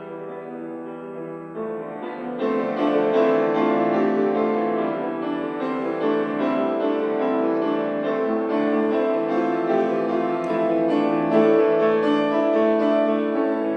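Live piano music with long held notes, growing fuller and louder about two seconds in.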